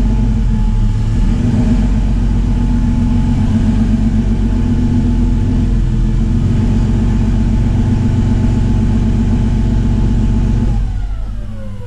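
Porsche 996 Carrera flat-six engine with a muffler delete running steadily at low speed, loud with a pulsing low exhaust note. Near the end it drops away, its pitch falling.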